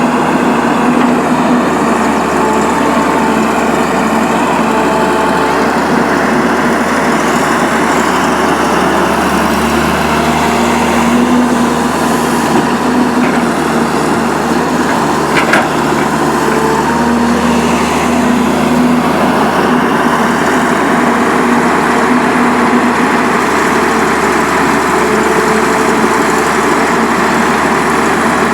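Hydraulic excavator's diesel engine running steadily under work, with a single sharp knock about halfway through.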